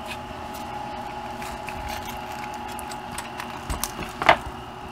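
Small clicks and taps of plastic RC truck chassis parts being handled and fitted by hand on a workbench, with a louder short knock about four seconds in, over a steady background hum.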